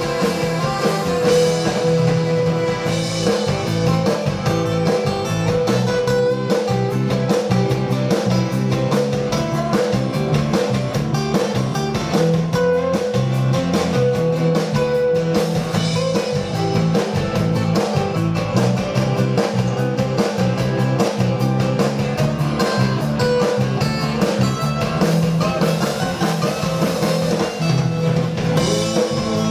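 Instrumental passage of a live folk song: acoustic guitars strummed and picked, with a piano accordion playing along.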